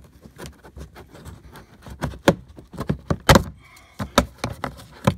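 Plastic interior trim cover being pried and pulled off: a series of irregular clicks and knocks, the loudest about two, three and four seconds in and just before the end.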